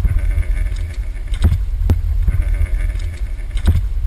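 Low rumble of wind buffeting a small action camera's microphone, with scattered knocks and rubbing from the camera being handled and swung around.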